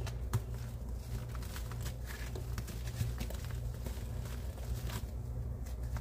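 Hands crumbling a dry, chalky puck of homemade powdered cleaner, with scattered soft crunches and rustles as pieces break off, over a steady low hum.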